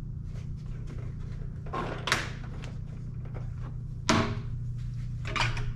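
Small LED grille light being pressed into a slot in a plastic Ford Bronco grille: a few plastic knocks and clicks, the sharpest snap about four seconds in as it seats.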